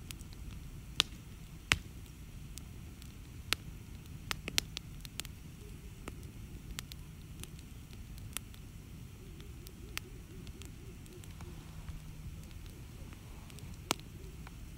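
Wood campfire burning: a steady low noise of flames with sharp, irregular crackles and pops of burning logs. The loudest snaps come twice in the first two seconds and once near the end.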